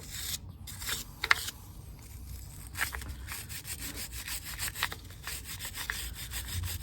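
A stiff hand brush scrubbing a motorcycle's rear brake caliper, in quick, uneven back-and-forth strokes of scratchy rubbing.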